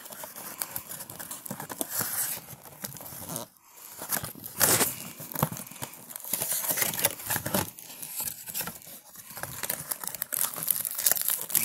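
Cardboard of a trading-card mega box rustling, scraping and tearing as it is opened up and the card packs are slid out, in a run of irregular crinkles with a louder burst about five seconds in.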